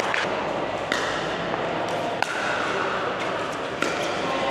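Pickleball paddles striking a hard plastic ball and the ball bouncing: a handful of sharp, separate pops about a second apart over steady background noise.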